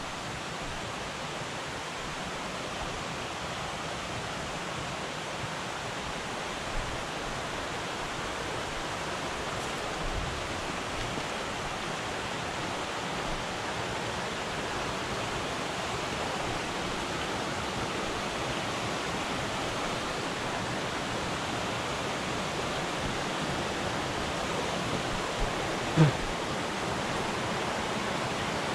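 Steady rush of a small rocky mountain creek flowing over stones and riffles, growing slightly louder, with one short thump near the end.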